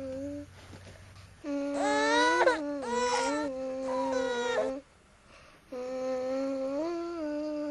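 A voice humming long held notes in a slow melody, with a louder, wavering, wailing passage in the middle that rises in pitch; the notes stop briefly between phrases.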